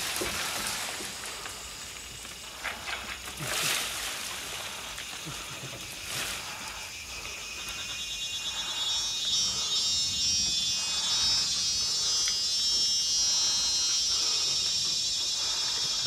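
A few brief rustles in the first six seconds, then a high, pulsing insect drone in the rainforest trees that swells from about halfway and holds steady, with softer repeated calls beneath it.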